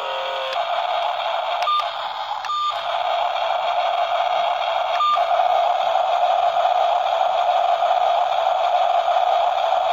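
Small electric motor of a remote-control toy excavator running with a steady whine, broken by three short clicks in the first half.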